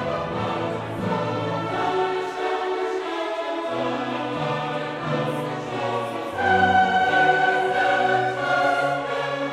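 Background music: choral music with slow, sustained chords that grows louder about six seconds in.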